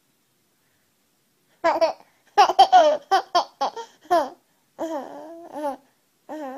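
A baby laughing in its sleep: after a second and a half of silence, a run of short high giggles, then two longer laughs whose pitch goes up and down, and one more short one near the end.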